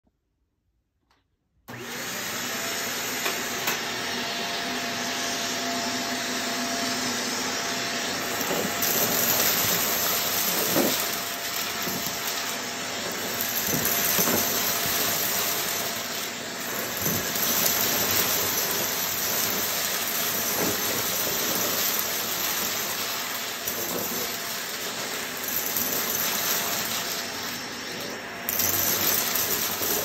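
Shark vacuum cleaner switching on about two seconds in and running over carpet, its steady noise swelling and easing every few seconds as it is pushed back and forth, with crunchy crackles of debris being picked up.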